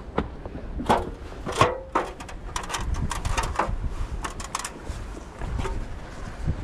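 Carried fishing gear (landing net hoop, rod and plastic tackle box) knocking and rattling against each other and the rocks as the angler moves: a few sharp knocks about a second in, then a quick run of clicks and clatter in the middle. A low wind rumble on the microphone lies under it.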